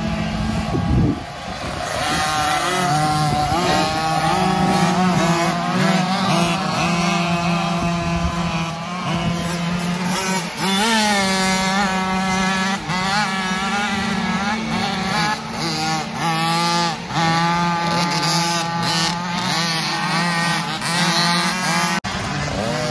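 Several youth motocross bikes racing past on the track, their engines revving up and down with overlapping rising and falling pitches as they power out of the corners.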